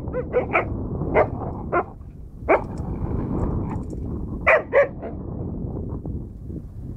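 A dog barking in play, in short, sharp barks: a quick run in the first two seconds, a single bark at about two and a half seconds and a pair near five seconds.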